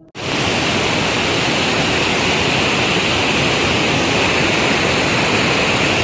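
A waterfall and rapids of swollen, muddy river water rushing over rocky ledges and boulders, heard up close as a loud, steady rush of water that starts abruptly just after the start.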